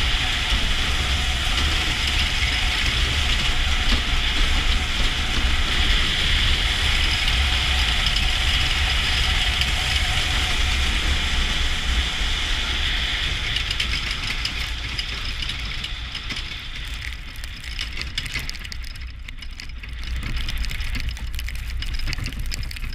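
Steel runners of a bobsled rumbling and hissing over the ice track at speed, a loud steady rush with a deep rumble underneath. It fades over the last third as the sled slows on the outrun.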